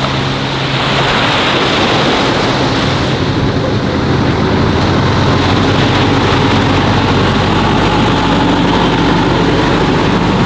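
Diesel engine of a Caterpillar 416F backhoe loader running steadily as the machine drives past close by, with surf breaking on the shore. The engine grows louder about a second in, then holds steady.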